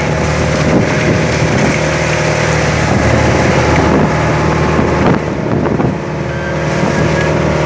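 Bagan fishing boat's engine running steadily, with wind noise on the microphone.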